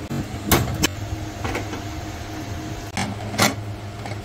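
About five sharp metallic knocks and clanks from an aluminium pressure cooker and its lid being handled as it is filled and closed, over a steady low hum.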